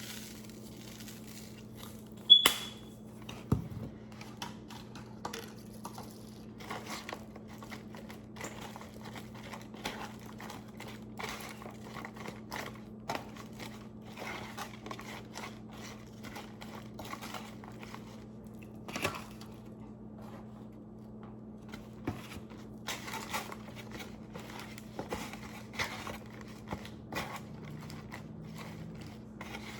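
Plastic food containers and condiment packets being handled: crinkling, tearing and small taps and clicks, with a sharp ringing clink about two seconds in, over a steady low hum.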